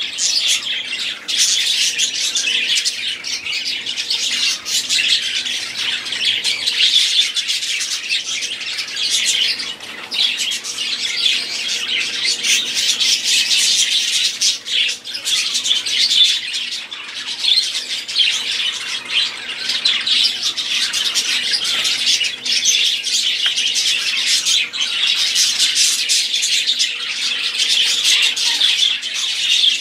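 Budgerigars chattering and warbling without pause, a dense, high-pitched stream of overlapping chirps and squawks.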